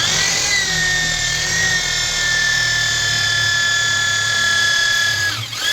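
Electric drill starting up and running steadily at full speed with a high whine, boring a mounting-screw hole for the door closer, then winding down with falling pitch near the end.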